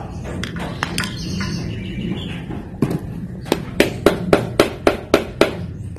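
Hammering: a run of about eight sharp blows, about three a second, in the second half, over a steady low hum. A few lighter clicks come in the first second.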